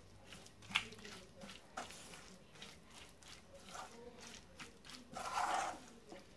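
Wooden spatula stirring and scraping a thick, oily spice paste in a pan: irregular clicks and wet squishing strokes, with a longer, louder scrape about five seconds in.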